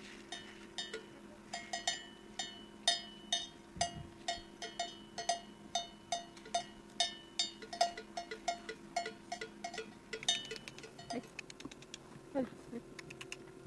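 Bell on a grazing sheep clanking in an irregular rhythm, about two to three strokes a second, each stroke ringing with a clear metallic tone; the strokes thin out near the end.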